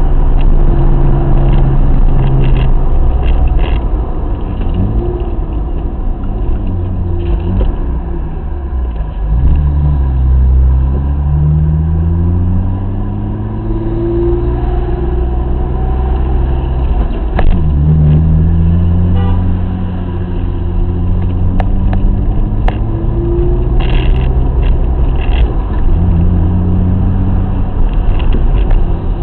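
BMW M50B20 2.0-litre straight-six engine of a 1987 E30, heard from inside the car, running in slow traffic. Its note rises in pitch twice as the car accelerates, about a third of the way in and again past the middle.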